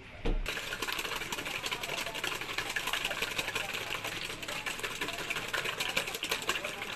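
Batter being beaten fast in a stainless steel mixing bowl: a quick, irregular clatter of clicks as the whisk strikes and scrapes the metal, with a dull thump just before it starts.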